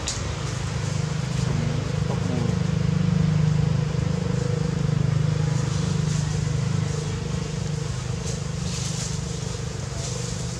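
A steady low engine drone that swells a couple of seconds in and slowly eases off again.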